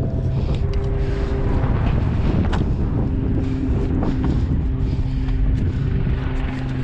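Wind rumbling on the microphone, with a steady mechanical hum, like a distant engine, running underneath.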